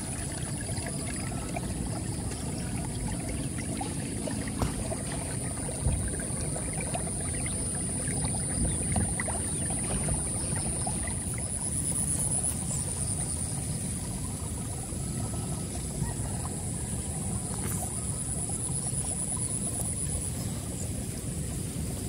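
Shallow stream trickling over stones, with a steady high-pitched trill of crickets over it.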